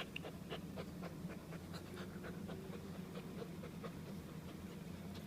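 German Shepherd puppy panting in quick, short breaths, tired after a walk, over a low steady hum.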